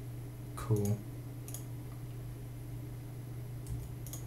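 A few sharp clicks from working at a computer, over a steady low electrical hum.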